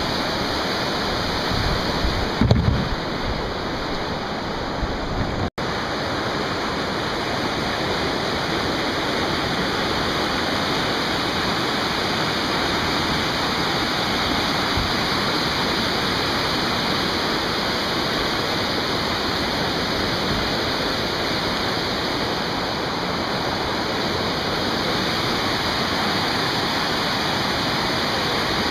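Steady rush of whitewater rapids pouring over river rocks. There are a few low bumps in the first few seconds and a brief cut to silence about five and a half seconds in.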